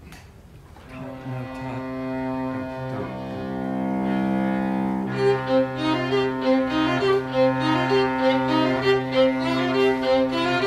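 Live string trio, two violins and a cello, playing. Held chords swell in over the first few seconds, then from about five seconds in the violins play a repeating figure of short notes over a held cello note.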